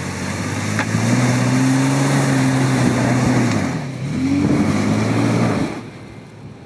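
Off-road vehicle engine revving under load in two pushes of the throttle: it builds and holds for about three seconds, dips briefly about four seconds in, comes back up, then backs off near the end.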